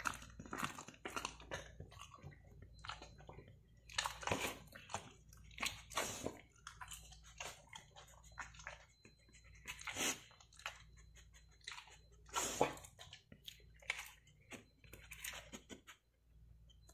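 Dog chewing food close to the microphone: a run of irregular crunching chews and mouth clicks, with louder bursts of crunching about 4, 10 and 12 seconds in.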